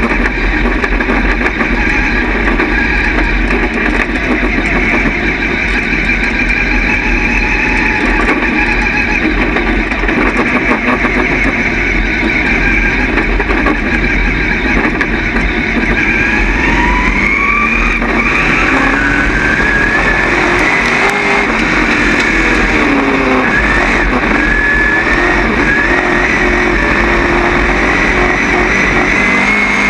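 Dirt Late Model's V8 engine running, heard from inside the car's cockpit at low track speed. The engine note climbs about halfway through, drops back, then rises again near the end as the car picks up speed.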